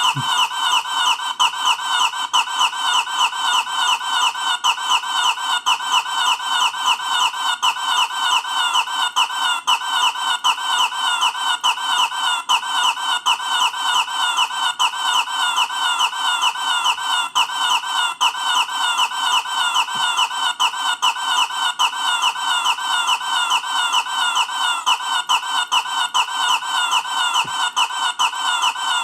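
The cartoon mailbox's funny sound effect: a rapid, evenly repeating squawking chirp, several a second, each a short falling note, looping on without a break.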